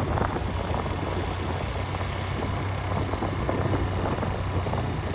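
A vehicle driving along a road: a steady low engine hum under an even rushing noise of tyres and air.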